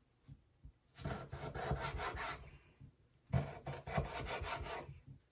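Kitchen knife cutting pickled daikon into small pieces on a cutting board: two runs of quick, repeated slicing strokes, each lasting about a second and a half.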